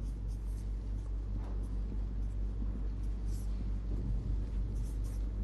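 A marker writing on a whiteboard in short, faint strokes, over a steady low electrical hum.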